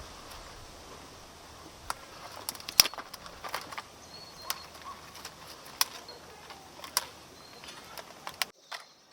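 Outdoor ambience: a steady light hiss with scattered sharp clicks and knocks, and a few faint high bird chirps. It cuts off abruptly near the end.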